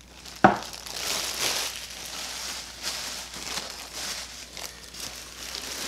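A sharp knock about half a second in, then steady crinkling and rustling of a plastic packaging bag as a plastic-wrapped string trimmer shaft is handled and lifted out of its box.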